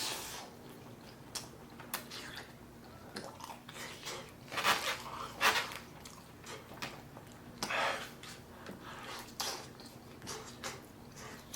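A person chewing food up close, with irregular wet mouth sounds; a few louder bites come around the middle.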